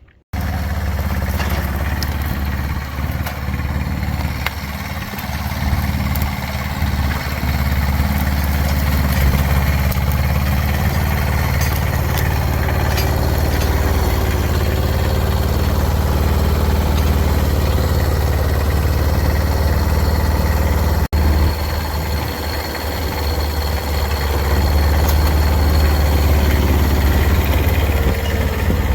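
Kubota BX1500 compact tractor's small diesel engine running steadily under work, heard close up. The sound drops out for an instant about two-thirds of the way through.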